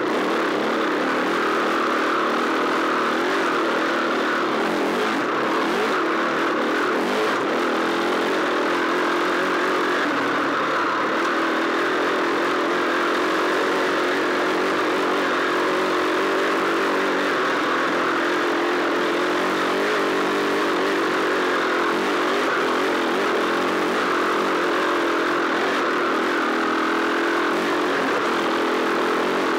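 Dirt bike engine running continuously under load as the bike is ridden along a rough dirt trail, heard close up from the bike itself.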